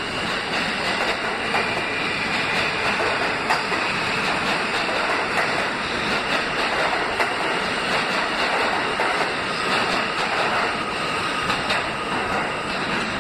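New York City subway train pulling out of the station, its cars running close by with a steady rumble and rattle of wheels on rail. There are scattered clicks and a thin high squeal from the wheels at times, and the sound eases slightly as the last car pulls away near the end.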